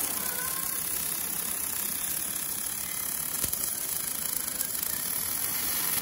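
MIG welding arc from an automatic double-torch welder on thin 0.8 mm stainless steel, a steady hiss and crackle that cuts off suddenly at the end as the weld finishes.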